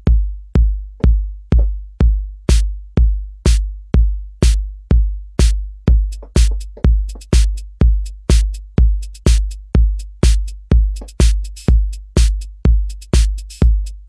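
Native Instruments Maschine drum machine looping a step-sequenced beat at about 124 BPM: a kick drum on every beat, about twice a second. Hi-hat hits join a couple of seconds in and grow denser from about six seconds as more steps are switched on.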